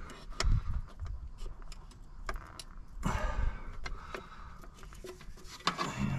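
Scattered light metallic clicks and clinks, with a couple of dull knocks, as the clutch shift fork and throwout bearing are worked by hand onto the transmission's input-shaft bearing retainer.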